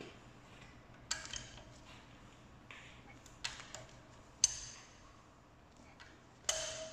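Sharp metallic pings and clicks from a long-handled wrench and socket tightening the cylinder head bolts of a VW 1.8 TSI engine. There are about six, each ringing briefly, and the loudest comes about halfway through.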